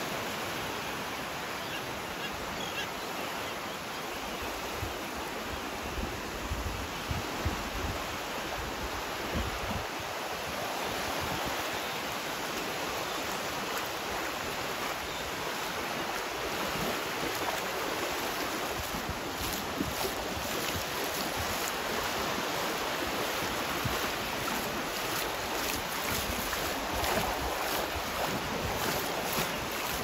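Small ocean waves washing steadily over shallow surf at the shoreline, with wind buffeting the microphone now and then in low gusts.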